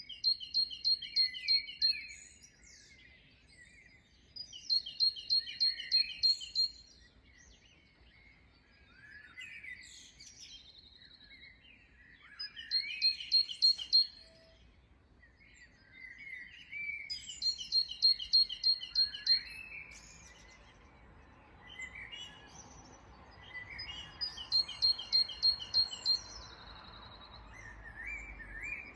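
Songbirds singing in a dawn chorus. One bird repeats the same song five times, a quick run of about eight to ten high, evenly spaced notes, while other birds chirp and whistle in between. A faint rushing noise builds in the last third.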